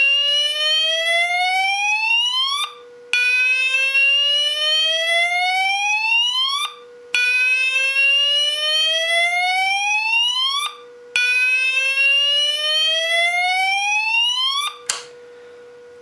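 A 32-tone Banshee fire alarm sounder on its slow-sweep tone. A loud electronic tone climbs steadily in pitch for about three and a half seconds, breaks briefly, and starts again from the bottom, over and over. It cuts off with a click about 15 seconds in.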